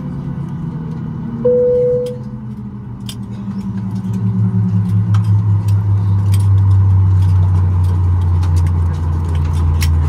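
Boeing 737 MAX 8 cabin at the gate: the engines winding down with slowly falling tones, and a single cabin chime about a second and a half in as the seatbelt sign goes off. From about four seconds in a low steady hum swells up, while scattered clicks and clatter of seatbelt buckles come from around the cabin.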